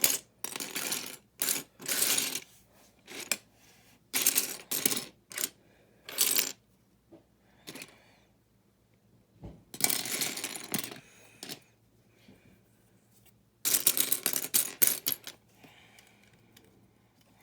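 Small plastic building-brick pieces clattering and clicking in several quick bursts as they are handled and pressed onto a build, with quiet pauses between bursts.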